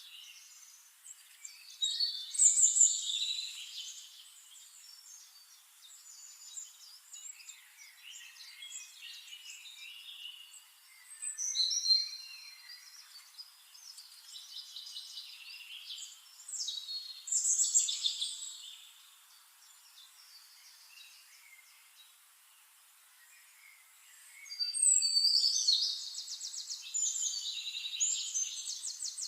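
Songbirds singing in four bursts of chirps and trills, ending with a long rapid trill near the end, over a faint steady hiss of trickling stream water.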